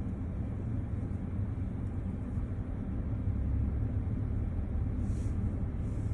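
Low, steady vehicle rumble heard from inside a car's cabin.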